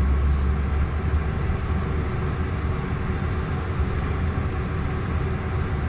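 Business jet's turbofan engine idling steadily just after a good start, heard inside the cockpit as a low, even rumble with a faint steady whine.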